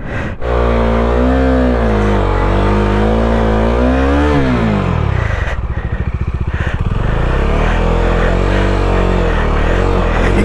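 Bajaj Dominar 250's single-cylinder engine revving unevenly, the revs rising and falling as the motorcycle churns through deep mud. About four and a half seconds in the revs drop and it runs lower with a pulsing beat, then revs up again near the end.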